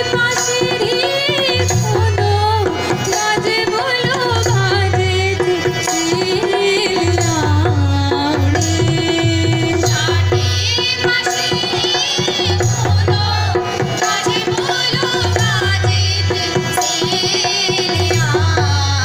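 Himachali folk dance music: a winding, ornamented melody over a steady, repeating drum beat, playing continuously.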